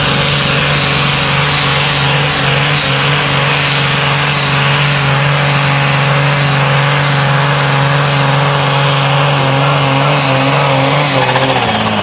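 Diesel engine of a sport class pulling tractor running loud and steady at full load as it drags the sled. Near the end its pitch falls away as the revs drop.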